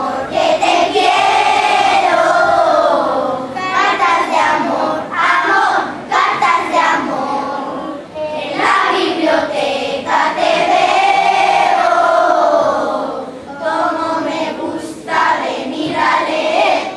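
A children's choir singing together in several long phrases with short breaks between them. The song stops shortly before the end.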